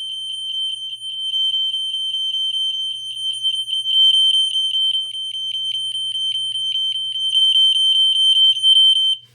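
System Sensor Spectral Alert Classic fire alarm horn sounding its 3000 Hz continuous tone: a steady, loud, high-pitched tone with a fast regular flutter, cutting off abruptly near the end.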